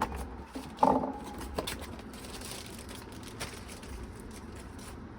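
Computer parts and their packaging being handled: a sharp knock that rings briefly about a second in, as of something set down, then light rustling and small clicks.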